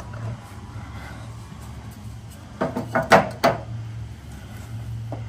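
A short run of four or five quick knocks and clatter, as of objects being handled, about three seconds in, over a steady low hum.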